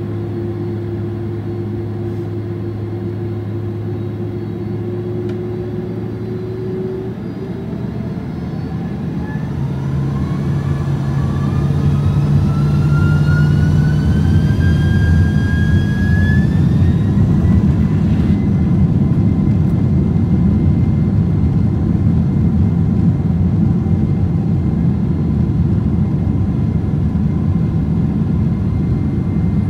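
Boeing 767-400ER's GE CF6-80C2 turbofan engines heard from the cabin over the wing, spooling up from idle to takeoff thrust. A whine rises in pitch for about ten seconds as the sound grows louder, then settles into a steady, loud roar as the takeoff roll gets under way.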